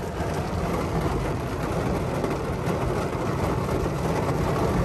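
Heavy rain pelting the car's glass and body, a steady hiss heard from inside the cabin, over the low hum of the car running.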